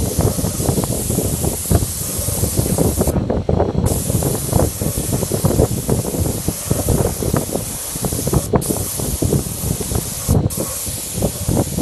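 Gravity-feed air spray gun hissing steadily as it sprays paint. The hiss stops for under a second about three seconds in, then twice more, briefly, near the end, as the trigger is let go. A rough low rumble runs underneath.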